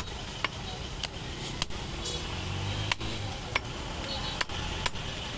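Meat cleaver chopping goat meat on a wooden log chopping block: about eight sharp chops, roughly two a second, with a short break near the middle.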